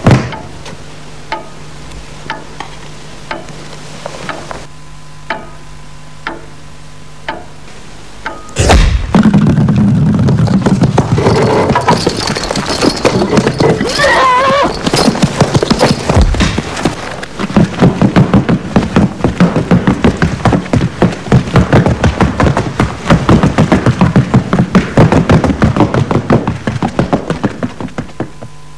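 Slow, even knocks about once a second over a low hum, then a sudden loud crash about nine seconds in. A horse follows in a fast, dense clatter of hooves, with a shrill wavering whinny in the middle.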